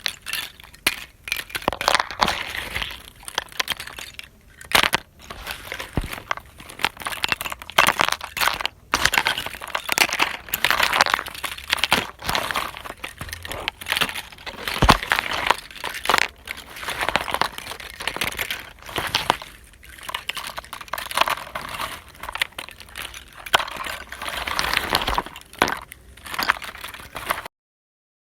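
Continuous irregular crackling and clinking of small hard objects being knocked about and broken, a dense run of sharp clicks with brief pauses, cutting off suddenly near the end.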